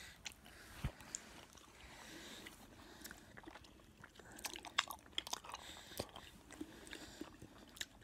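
Faint scattered clicks and rustles, the handling noise of a phone being moved and held, over low room noise.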